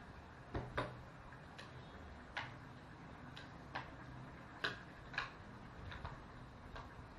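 Light, irregular clicks and knocks, about one a second, from a spoon tapping against a mixing bowl as ceviche is stirred.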